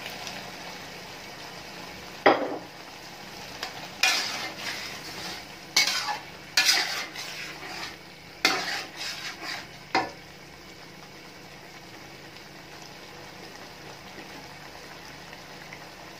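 Slotted metal spatula stirring tomato puree into soya chunks and potatoes in a metal pot, with irregular scrapes and clanks against the pot over a steady sizzle. The stirring stops about ten seconds in, leaving only the sizzle.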